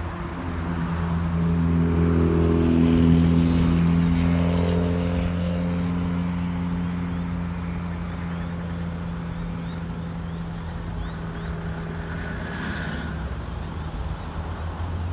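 A road vehicle's engine running with a steady low hum, getting louder over the first few seconds and then easing off slightly.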